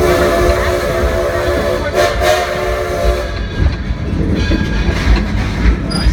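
Steam whistle of the coal-fired steam locomotive 'Thomas A. Edison' sounding a chord of several tones in two blasts, a longer one and then a shorter one, ending about three seconds in; after that, the train's running noise with clicking wheels over the rail joints.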